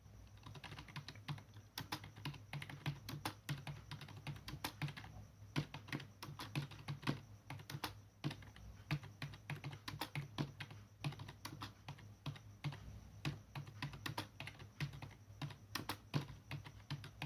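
Computer keyboard being typed on at a brisk, uneven pace: a dense run of key clicks, several a second, with a couple of short pauses.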